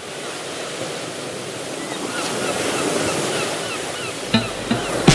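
Sea ambience of waves washing, swelling steadily louder, with a bird chirping over and over. Near the end a few sharp hits of music come in.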